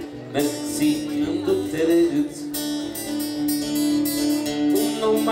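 Steel-string acoustic guitar strummed, playing the accompaniment of a song.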